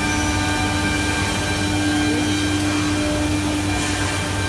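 Holztek CNC hinge-boring and lock-mortising machine running, a steady whine and hum from its spindle head and dust extraction.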